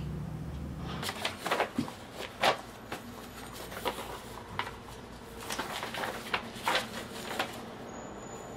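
Irregular clicks and rustles, like things being handled or clothing shifting, scattered over several seconds after a low hum stops about a second in.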